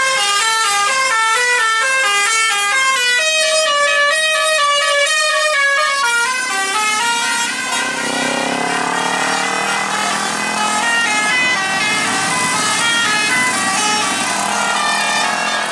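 Bus telolet musical horn (Basuri type) playing a fast tune of short stepped notes, loud. After about six seconds the clean notes give way to a blurrier, wavering horn sound mixed with noise.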